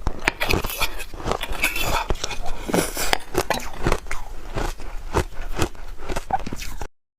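Close-miked biting and crunching of soft shaved ice, a dense run of rapid, irregular crunches that cuts off suddenly near the end.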